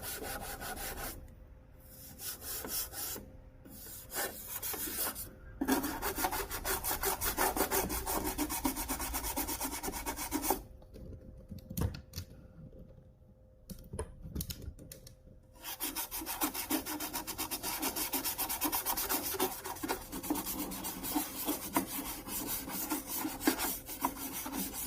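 Rapid back-and-forth scrubbing and rubbing on the plastic casing of a Singer Quantum Stylist 9960 sewing machine, cleaning off dirt. It comes in spells, with brief stops early on and a longer pause around the middle.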